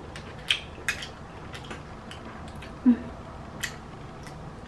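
A few sharp clicks and wet smacks of someone eating clams by hand from the shell, with a short hummed "mm" about three seconds in.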